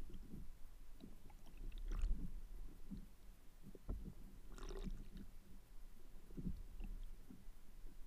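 Underwater noise picked up by a submerged camera: a muffled low rumble with irregular soft knocks, and two brief bubbling crackles, about two seconds in and near the middle.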